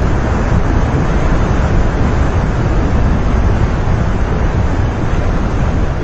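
Glacial meltwater stream rushing through an ice channel: a loud, steady rush of water with a strong low rumble.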